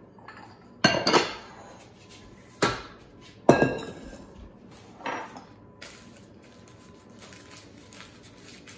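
Several sharp clanks of a stainless-steel mixing bowl and a utensil knocking against it, each ringing briefly, spread over the first five seconds or so.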